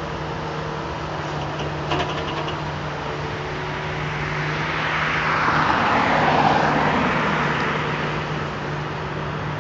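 Jet engines of an Airbus A330-300, Rolls-Royce Trent 700 turbofans, running at taxi power as the airliner rolls slowly before its take-off. A rushing swells in the middle and fades again, and there is a brief click about two seconds in.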